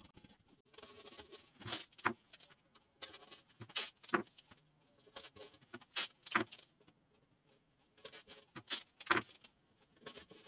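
Masking tape pulled off the roll and torn into short strips: sharp rips in pairs, a pair about every two seconds, with light handling noise in between.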